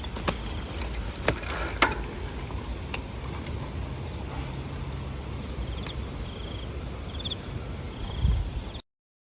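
Outdoor ambience: a steady low rumble with a few sharp clicks in the first two seconds, and a faint, evenly repeating high insect chirping with occasional short chirps. It cuts off abruptly near the end.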